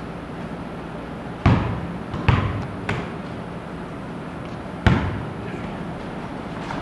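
A basketball bouncing on a rubber-matted floor: four separate thumps, the third fainter, each ringing briefly in a large wooden hall.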